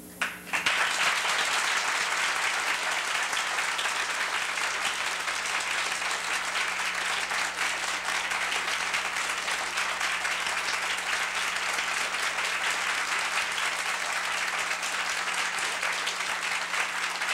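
Theatre audience applauding: the last held note of an a cappella harmony song dies away as the clapping breaks out suddenly, then holds steady and full.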